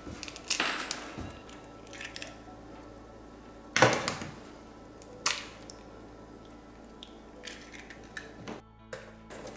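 Eggs cracked on the rim of a mixing bowl: a few sharp cracks, the loudest about four seconds in, over soft background music.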